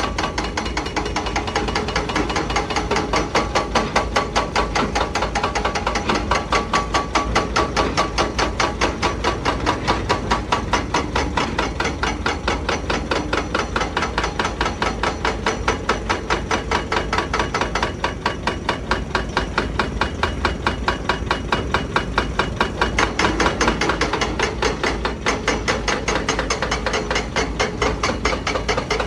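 Excavator-mounted hydraulic breaker hammering rock with rapid, evenly spaced blows, over the steady low rumble of the diesel engines.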